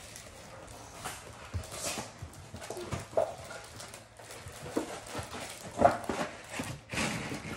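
Plastic Kit Kat wrapper crinkling and crackling in a child's hands as he works at it, trying to open it, with irregular small crackles and a few louder rustles.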